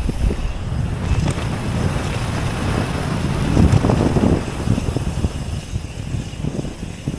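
Mountain bike rolling fast down a dirt forest singletrack: wind rushing over the helmet-mounted microphone and tyres rumbling over roots and dirt, with the bike's rattles and knocks. It grows loudest about four seconds in.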